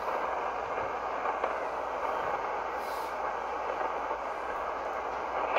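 Shortwave receiver tuned to 7.267 MHz on the 40-metre band, its speaker giving a steady rushing hiss of band static with no voice signal on the frequency.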